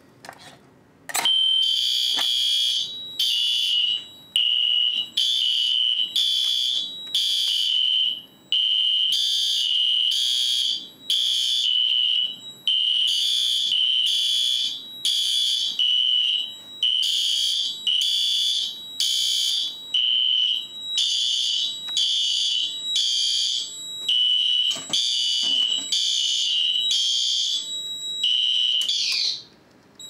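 A manual fire alarm pull station clicks as it is pulled, and System Sensor SpectrAlert horn strobes then sound loudly in repeated pulses of roughly a second with short gaps: the fire alarm system in alarm. Near the end the horns stop with a brief falling pitch.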